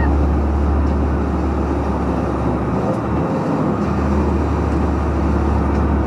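Diesel engine of a Swiss Army IVECO 6x6 truck pulling uphill under a load of about 19 tonnes, a steady low drone mixed with road noise. The lowest part of the drone dips briefly about halfway through.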